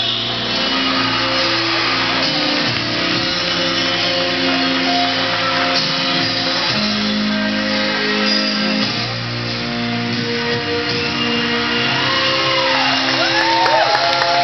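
Live music with guitar, held chords and notes ringing in a large hall. Near the end, several high rising-and-falling whistling glides come in over the music.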